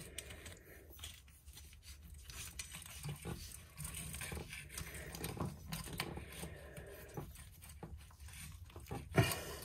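Faint scattered clicks and scrapes of small metal parts being handled as a braided stainless hose's threaded nut is screwed by hand onto a bidet sprayer's metal handle, with one sharper click near the end.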